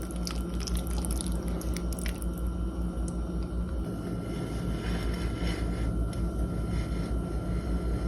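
Cooking in a pan: food being stirred or tossed, with soft wet squishing and light scattered clicks of a utensil, over a steady low hum.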